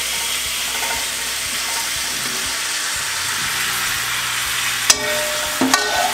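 Fried raw-mango pieces sizzling in hot oil and spice masala in a kadhai while a spatula stirs them. A sharp knock comes about five seconds in, and a few more spatula knocks follow near the end.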